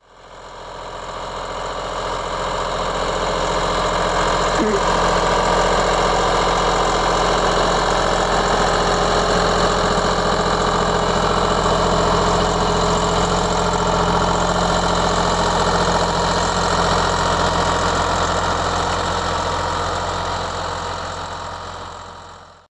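SAME Taurus 60 tractor's air-cooled diesel engine running steadily at high revs, about 2500 rpm in second gear, under load while pulling a plough. The sound fades in over the first couple of seconds and fades out at the end.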